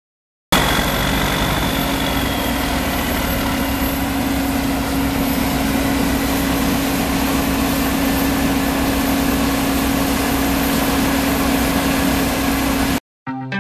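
Heavy farm machine engine running steadily at a constant speed, with a steady droning hum. It starts abruptly about half a second in and cuts off abruptly near the end.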